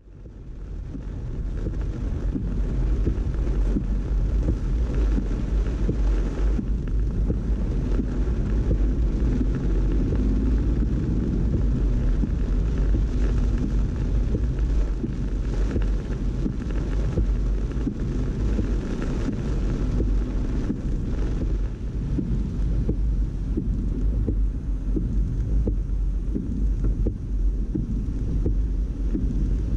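Cabin noise of a car driving through heavy rain on flooded streets: a steady low rumble with the hiss of rain and wet tyres on standing water. It fades in over the first second or two.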